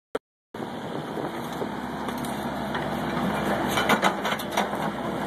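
A Hyundai Robex 55-7 mini excavator's engine runs steadily while it loads rocks into a dump truck, with a cluster of knocks and clatters about four seconds in. The sound cuts out for about half a second at the very start.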